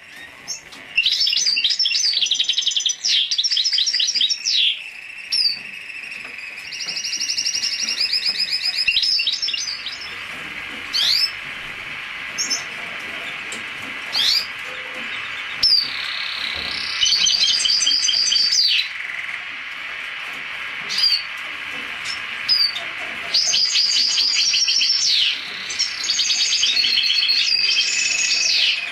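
Hooded siskin × canary hybrid singing: phrases of rapid high trills and twitters lasting a few seconds each, separated by short single chirps.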